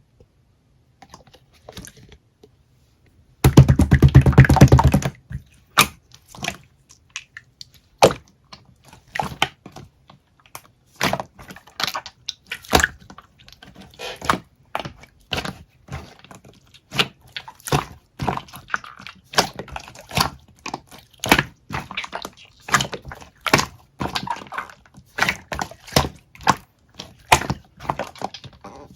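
Slime being squeezed and pressed by hand, making irregular sharp clicks and pops as trapped air bursts, with a dense, loud stretch of squishing about three to five seconds in.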